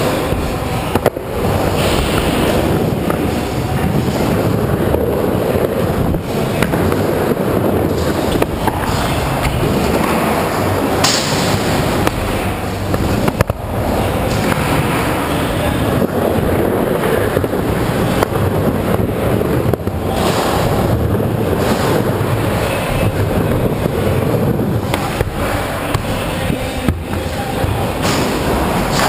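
Skateboard wheels rolling over plywood ramps, a continuous loud rumble broken by occasional sharp knocks of the board.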